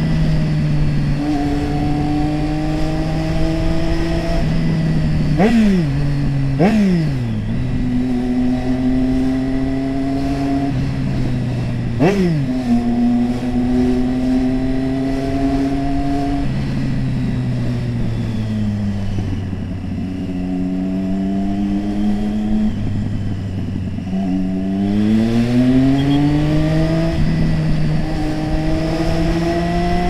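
Triumph Street Triple 675R's 675 cc inline-three engine running at steady mid revs under way. The pitch creeps up in each stretch, dips sharply and recovers three times in the first half, sinks lower for several seconds in the middle, then climbs smoothly again about 25 seconds in.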